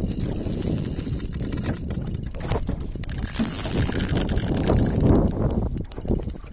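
Wind rumbling on a phone's microphone aboard an open boat, with a few knocks from the phone being handled near the end.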